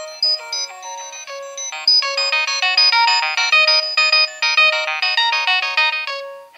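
Nokia 6820a polyphonic ringtone playing: a thin, high synthesized melody with no bass. It turns busier and louder about two seconds in, then stops near the end.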